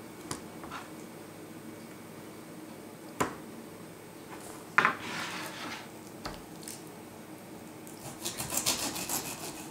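Kitchen knife sawing through a whole pineapple on a plastic cutting board in a quick run of strokes near the end. Before that come a few scattered light knocks and a short scrape of handling, over a faint steady hum.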